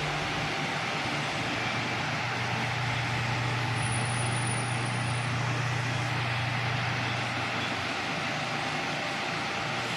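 Mondial Super Power 40 cm six-blade table fan running steadily: an even rush of air with a low motor hum beneath it.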